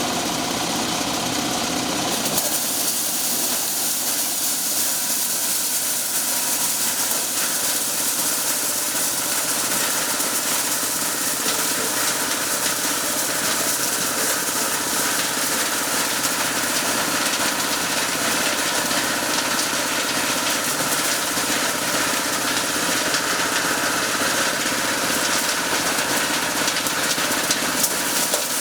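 Engine-driven corn sheller running steadily, its motor and threshing drum making a continuous mechanical din.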